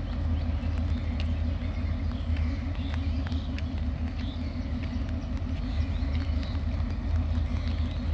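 Diesel locomotive engine idling with a low, even throb, while small birds chirp faintly.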